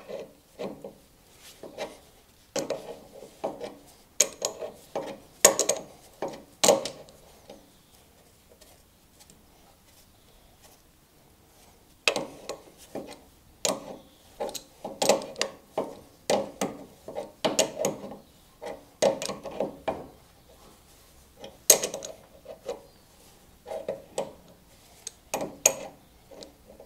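Spanner working the bolts that hold the hydraulic pump on a Hanomag R16 tractor's engine: irregular bursts of metal clicks and scraping, stopping for a few seconds about a third of the way in, then resuming.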